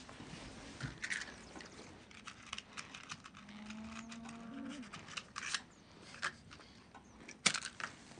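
Small clicks, taps and rustles of hands preparing a tobacco pipe for smoking. Near the end comes one sharp strike with a brief flare, a match being lit, which is the loudest sound.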